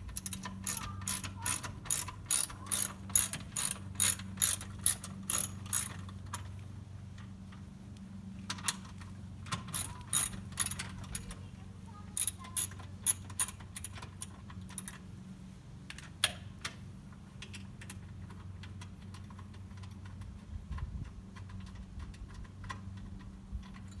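Hand ratchet wrench clicking as a 12 mm nut is worked loose: a fast run of about four clicks a second for the first six seconds, then shorter runs of clicks with pauses between.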